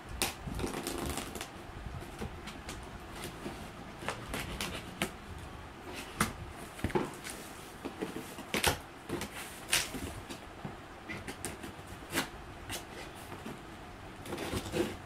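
A knife slitting the packing tape on a cardboard shipping box while the flaps are pulled open: irregular scraping and rustling of tape and cardboard, broken by sharp cracks.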